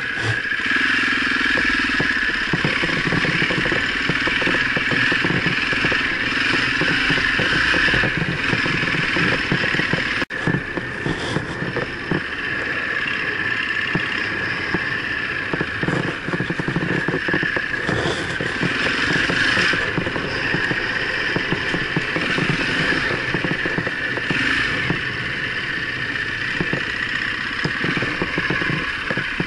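Husaberg enduro motorcycle engine running steadily while the bike rides a rough, rocky track, with wind noise on the camera microphone. The sound cuts out for an instant about ten seconds in.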